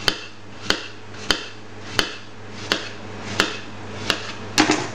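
Kitchen knife slicing a peeled apple on a stainless steel worktop, the blade tapping the steel with each cut at a steady pace of about one stroke every two-thirds of a second, with two quick strokes close together near the end.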